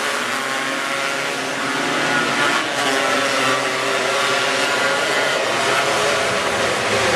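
A pack of winged sprint cars racing on a dirt oval, several engines running hard at once in a steady, dense drone.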